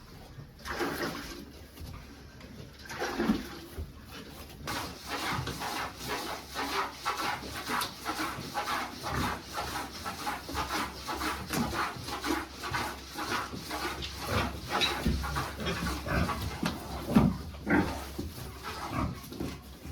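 Farm animal noises: a dense, irregular run of short sounds, becoming busier about five seconds in, with a few lower calls.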